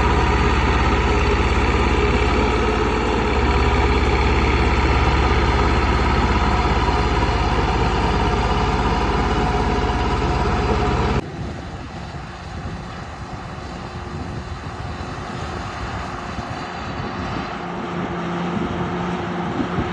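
Bulldozer's heavy diesel engine running steadily with a deep hum. About eleven seconds in the sound cuts off abruptly to a quieter, more distant machine running.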